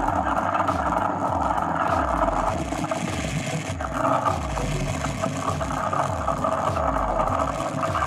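Espresso machine steam wand with a Venturi-hole outer sleeve steaming milk in a stainless steel jug, the tip deep in the milk: a steady hiss over a low pulsing rumble. The milk is heating toward temperature near the end of steaming, the jug now very warm.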